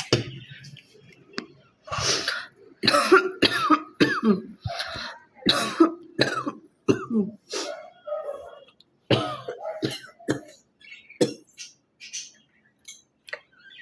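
A woman coughing and clearing her throat again and again, about a dozen harsh coughs in quick runs, as if working up phlegm.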